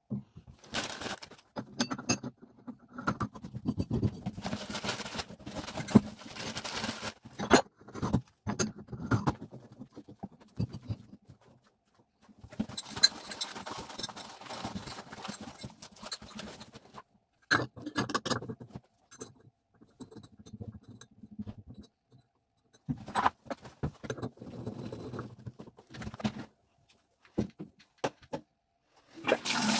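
Irregular clicks, knocks and scrapes of hard parts being handled, as in working on a tub faucet's fittings. At the very end, water starts gushing steadily from the tub faucet.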